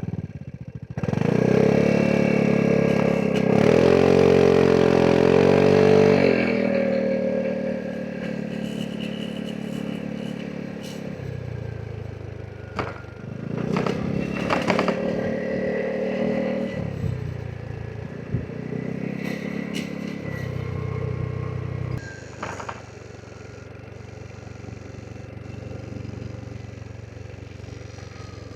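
Vespa GTS 300 SuperSport scooter's single-cylinder four-stroke engine pulling hard under acceleration for the first few seconds, then easing off. It surges again about halfway through and runs quieter at light throttle near the end.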